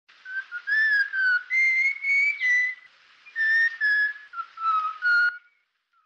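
A person whistling a short tune: two phrases of held, slightly sliding notes with a breathy hiss under them and a short pause between. It cuts off abruptly about five seconds in.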